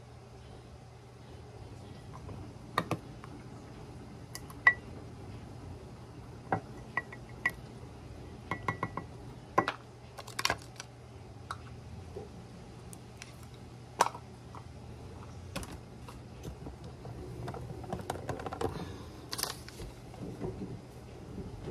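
Kitchen items being handled on a counter: a wooden honey dipper, a glass honey jar and its plastic container tapping, knocking and clinking against each other, the counter and a ceramic mug, in separate sharp clicks, a few of them ringing briefly. A steady low hum runs underneath, and a stretch of rustling and scraping comes near the end.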